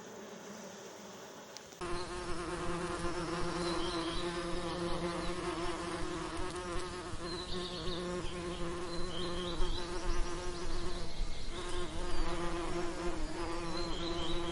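Bees buzzing: a steady wingbeat hum with a lower drone under it, which cuts in abruptly about two seconds in after a quieter hiss.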